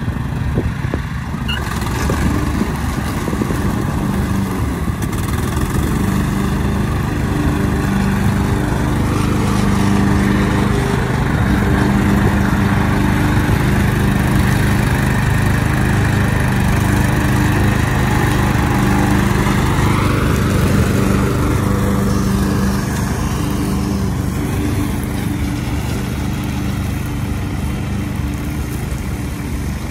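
Craftsman 42-inch riding lawn mower's engine running steadily as the mower is driven across grass, growing a little fainter near the end as it moves away.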